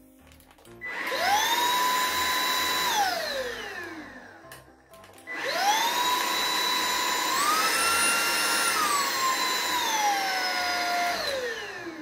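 Catchwell CX11 cordless stick vacuum's motor switched on, whining up to a steady pitch, holding about two seconds and winding down. About a second later it starts again, steps up to a higher pitch as the power level is raised, then steps back down and winds down near the end.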